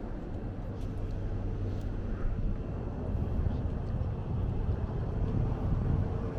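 Road traffic running past, a steady low rumble with a faint engine hum.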